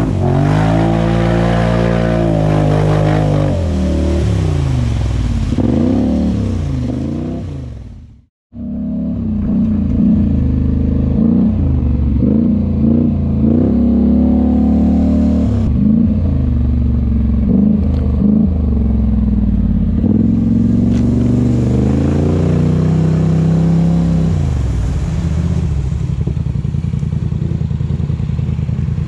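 Polaris Sportsman 850 XP ATV's twin-cylinder engine revving up and down under throttle as it is ridden. The sound cuts out briefly about eight seconds in, then the revving resumes and settles to a steadier run near the end.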